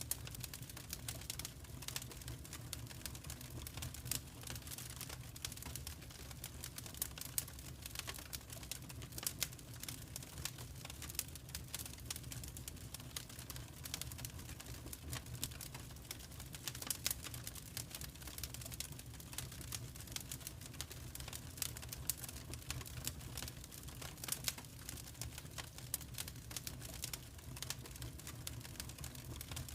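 Wood fire crackling in a fireplace: a dense, irregular stream of sharp snaps and pops over a low steady rumble.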